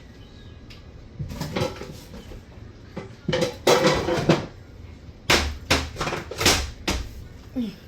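Kitchen clatter: a run of knocks and clinks as dishes, cookware and cupboards are handled, in three bursts.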